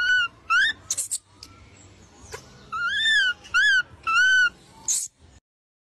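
Baby macaque giving about five short, high-pitched squeaky coos, each rising and falling in pitch, with a couple of brief breathy hisses between them.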